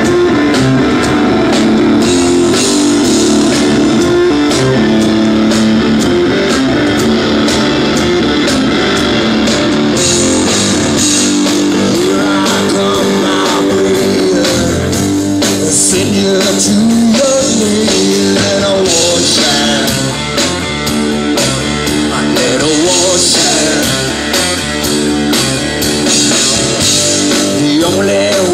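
Live rock band playing: electric guitar over drums at a steady beat, with a man singing over it from about halfway through.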